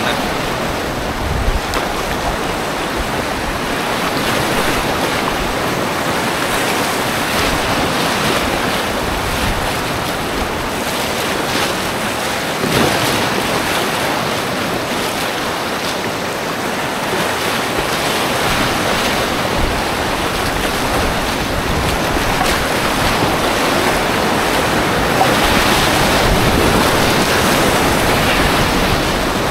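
Whitewater river rapids rushing loudly and steadily around an inflatable packraft, heard from on board as it is paddled through continuous rocky rapids; the rush grows a little louder near the end.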